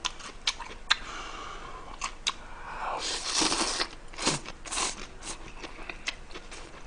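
A person slurping ramen noodles and chewing close to the microphone, with scattered small clicks; the longest slurp comes about three seconds in.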